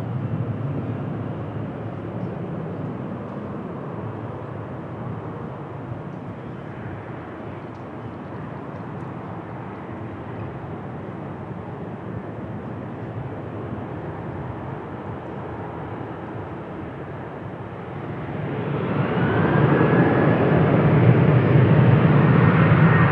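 Jet airliner engines: a steady rumble and hiss that eases off over the first few seconds, then swells sharply about eighteen seconds in, with a faint high whine, as the engine noise grows much louder.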